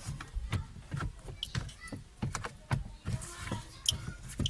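Irregular clicks, knocks and rattles of a car's plastic interior trim panel being pulled and worked loose by hand at its latches.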